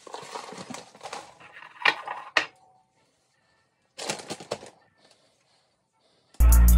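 Dry muesli clusters poured from a plastic bag into a ceramic bowl, rattling and clicking against the bowl with the bag crinkling for the first two and a half seconds; a second short rustle about four seconds in. Loud music with a beat starts near the end.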